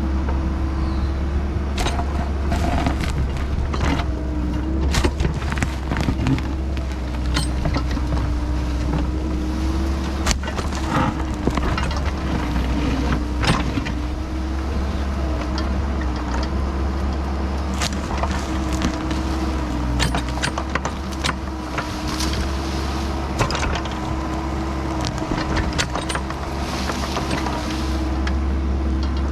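Kubota excavator's diesel engine running steadily under hydraulic load, its note dipping and rising slightly, with frequent clanks and scrapes of the steel tilt bucket against dirt and rock as it grades a hillside.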